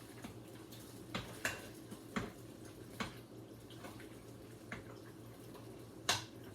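A spoon stirring a thick mix of ground beef, tomatoes and rice in a crock pot: wet stirring with about half a dozen short clicks of the spoon against the pot.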